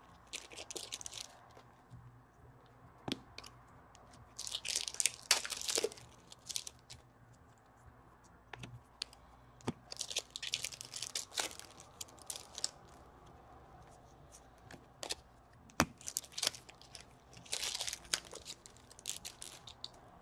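Wrappers of 2014/15 Upper Deck Series 1 hockey card packs being torn open by hand, three rips several seconds apart, with light clicks and rustles of cards being handled between them.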